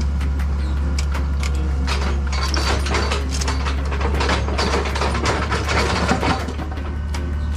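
Machinery engine running steadily, with repeated clicks, clanks and scraping over it, as of digging work.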